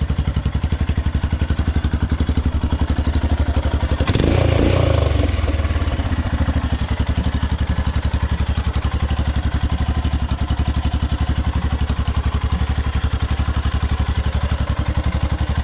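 Royal Enfield Himalayan single-cylinder motorcycle engine running with a steady thumping pulse, rising in a brief rev about four seconds in before settling back.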